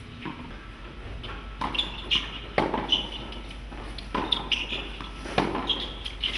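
Tennis rally on a hard court: sharp hits of rackets on the ball and the ball bouncing, with players' footsteps and shoes scuffing on the court between shots.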